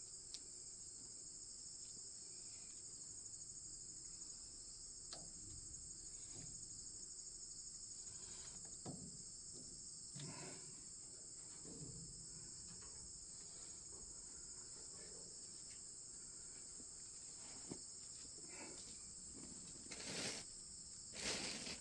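Insects chirping in a steady high chorus, with a few faint knocks and clinks near the end.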